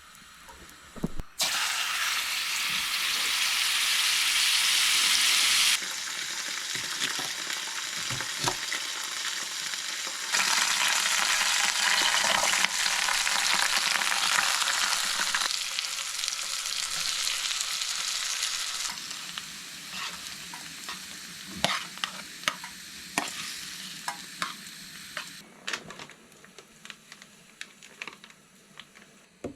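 Pork sizzling loudly in a frying pan of rendered pork fat from scrunchions (cured pork fat). The sizzle starts suddenly about a second in, rises and falls in strength several times, then dies down near the end under scattered sharp clicks of a utensil against the pan.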